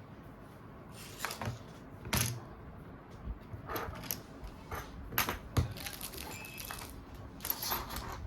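Mobile phones and small hard objects being handled and set down on a table: irregular sharp clicks, taps and light clatter, starting about a second in.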